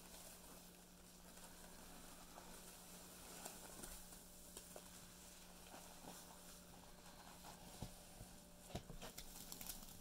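Faint, wet squelching and crackling as hands squeeze sponges soaked in a foamy paste of Pinalen cleaner and Comet cleansing powder, with a few louder squishes near the end.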